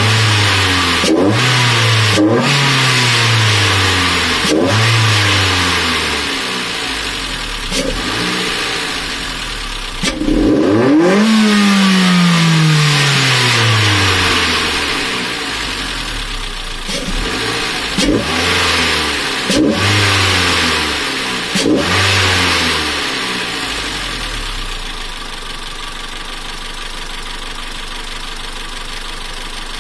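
Mitsubishi Lancer 1.8 MIVEC inline-four engine free-revving with a K&N Typhoon cold-air intake: a series of quick throttle blips, each pitch jump falling straight back. About ten seconds in, one longer, higher rev drops back slowly over some four seconds. The engine then settles to a steady idle for the last several seconds.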